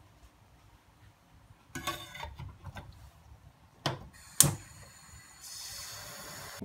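Metal puttu steamer tube and its lid being handled: some rattling and knocking, then two sharp metal clinks about four seconds in. Near the end comes a steady hiss of steam from the steamer.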